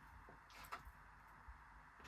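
Near silence with a few faint, light clicks and taps.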